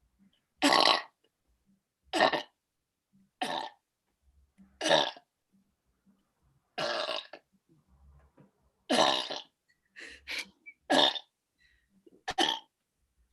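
A woman burping deliberately, one burp after another: about ten short burps, roughly a second or so apart, coming closer together near the end.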